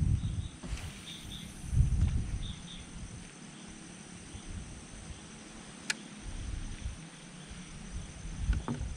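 Outdoor ambience on a small fishing boat: irregular low rumbles that swell and fade, strongest at the start, about two seconds in and near the end. Faint high chirps come in pairs over the first few seconds, and a single sharp click sounds about six seconds in.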